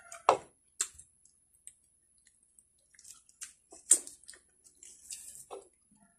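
Chewing of watery rose apple (tambis), broken by a few sharp clicks, the loudest near the start and about four seconds in.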